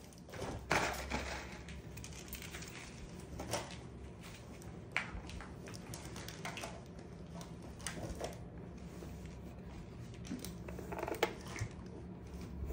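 Scattered light clicks and knocks, about nine at irregular intervals, from handling an airsoft gun and its gear, over a low steady hum.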